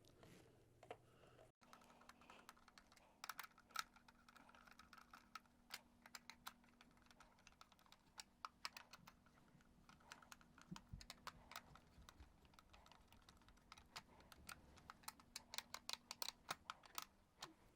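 Faint, irregular clicks and ticks of a screwdriver driving the screws back into the plastic two-piece housing of a Black & Decker BD170 orbital sander.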